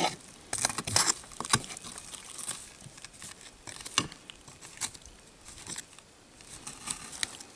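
A knife chopping and scraping through a baked mass of marshmallow, chocolate and graham cracker, giving irregular knocks and scrapes a few times a second.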